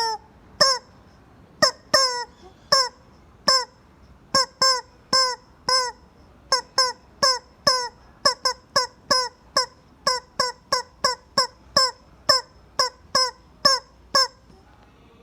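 Rubber chicken squeaky toy squeezed over and over. Each squeeze gives a short, nasal, honking squawk that drops in pitch. There are about two a second, quickening in the middle, and they stop about a second before the end.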